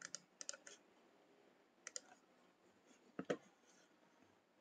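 Faint computer keyboard and mouse clicks: a few quick keystrokes in the first second as a file name is typed, a single click near two seconds, then a quick double click a little after three seconds.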